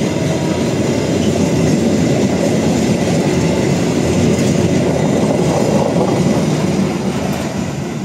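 Freight train of fuel tank wagons rolling past close by, steel wheels clattering on the rails in a steady dense rumble that fades near the end.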